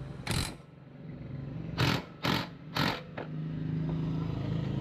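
Four short, sharp hissing bursts, then from about three seconds in a motor vehicle engine running steadily with a low hum.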